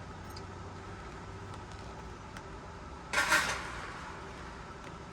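Plastic intercom mounting clip being pushed into the gap between a helmet's shell and liner: one short scraping rustle about three seconds in, with a few faint ticks before it over a low steady hum.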